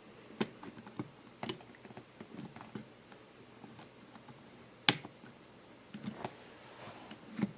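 Plastic Lego Technic pieces being handled and fitted, with the red cylinder piece going onto an axle: scattered small clicks and taps, and one sharp click about five seconds in.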